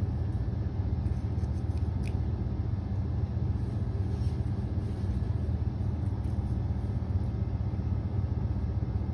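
Steady low rumble of background noise, with a faint click about two seconds in.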